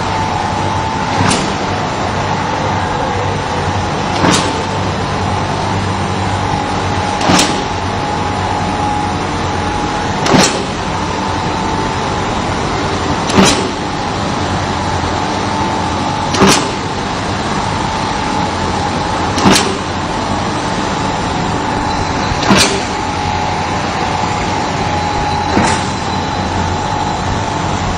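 Candy bar forming and cutting line running with a steady mechanical hum and whine. A sharp clack about every three seconds, nine in all, comes from the cross-cutting knife chopping the candy strips into bars.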